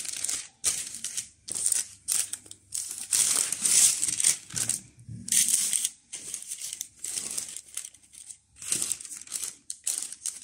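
Baking parchment crinkling in short, irregular rustles as hands braid soft dough strands lying on it.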